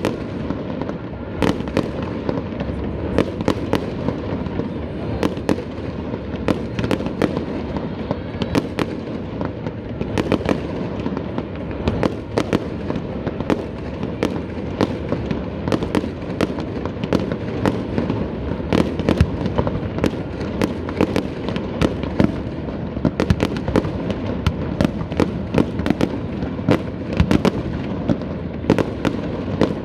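Fireworks display going off in quick succession: many sharp bangs and cracks, several a second, over a continuous low rumble of bursting shells.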